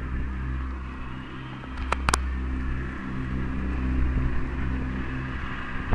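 Vehicle engine running steadily, heard from inside the truck's cab as a low hum with a noisy rush over it, and two sharp clicks about two seconds in.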